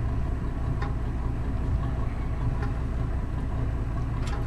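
Steady low rumble of an idling engine, with a few faint clicks.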